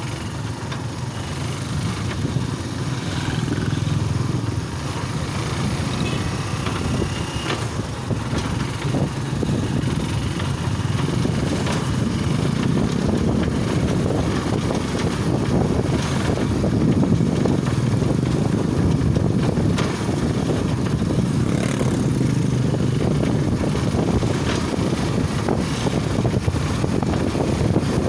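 Motorcycle with a sidecar running along a road: steady engine and road rumble from on board, growing a little louder after about ten seconds.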